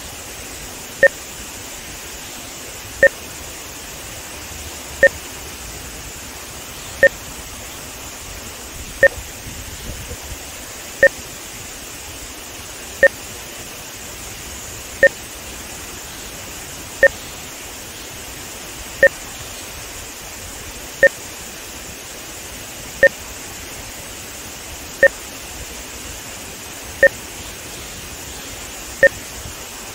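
Short electronic timing beeps, one every two seconds, each with a low and a high tone, added as audio sync markers for measuring audio-video timing. Under them a steady rush of water pours through a dam spillway.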